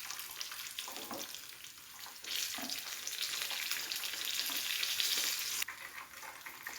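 Hot oil sizzling and crackling around breaded chicken pieces deep-frying in a pan, while the fried pieces are lifted out. The sizzle swells about two seconds in and drops off suddenly shortly before the end.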